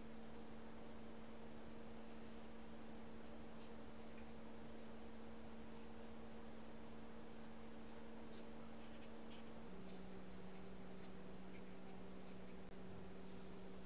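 Faint, soft scratching ticks of a paintbrush laying gouache on paper, over a steady low hum that drops slightly in pitch about ten seconds in.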